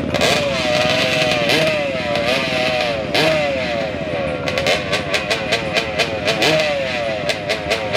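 Drag trike's engine revved hard again and again at the start line, its pitch climbing and falling back in quick blips. From about halfway it breaks into a rapid, even crackle of sharp bangs, about five a second.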